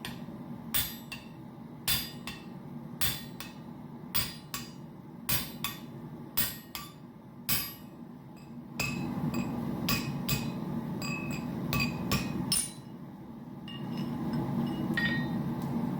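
Hammer blows on hot titanium stock over the anvil's hardy hole while an eye is punched through it: sharp ringing strikes about once or twice a second. A steady low hum comes in about nine seconds in, under the blows.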